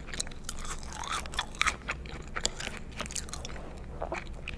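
Close-miked mouth chewing a sauce-dipped McDonald's french fry: irregular wet clicks and soft crunches, with a louder cluster about a second and a half in.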